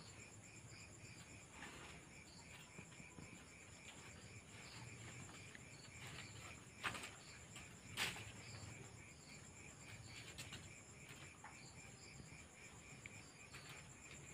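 Night insects chirping in a steady, fast-pulsing chorus, with two sharp cracks a little over a second apart near the middle as the lantana stem is worked by hand.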